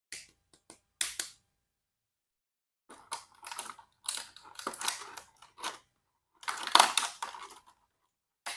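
Toy packaging being handled and opened: a few sharp clicks, then irregular crinkling and rustling, loudest a little before the end.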